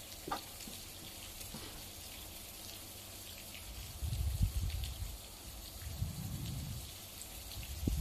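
Water trickling and dripping as rainwater runs off the slope onto the road, a faint steady sound with scattered small drips. Low muffled bumps on the microphone about four seconds in and again about six seconds in.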